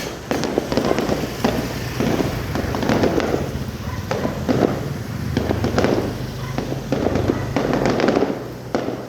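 Aerial fireworks display: shells bursting in a continuous barrage, about one dull boom a second, with crackling throughout.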